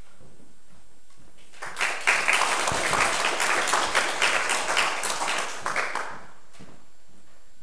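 Audience applause, starting about a second and a half in and dying away after about four and a half seconds.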